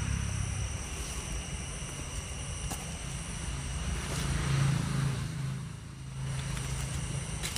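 Vehicle engine humming steadily, swelling about four and a half seconds in and dipping shortly after, with a few steady high-pitched tones above it.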